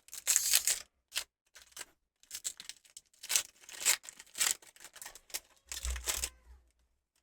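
Pokémon card packs and cards being handled: a run of short crinkling, rustling bursts, some like foil wrapper tearing, with a dull low bump about six seconds in.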